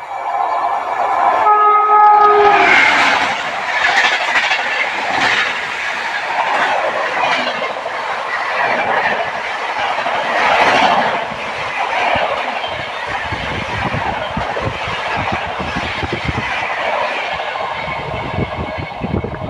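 Indian Railways express train sounding its horn briefly about two seconds in, then running past close at speed: a loud rush of wheel and coach noise, with a rapid clickety-clack of wheels over the rail joints in the last few seconds as the final coaches go by.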